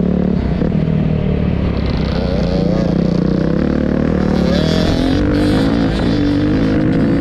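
The four-stroke single-cylinder engine of a 2020 Beta 350 Race Edition dirt bike, heard from the rider's helmet camera, under throttle on a motocross track. Its pitch rises and falls repeatedly as the rider rolls the throttle on and off and shifts through the turns and straights.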